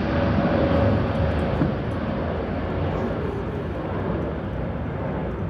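Steady rushing outdoor noise, like distant traffic or wind on the microphone, easing slightly, with a faint falling tone in the first two seconds.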